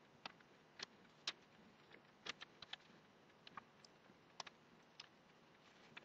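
Faint, irregular small clicks and taps of wires and hand tools being handled at a workbench, about a dozen scattered sharp ticks over low room tone.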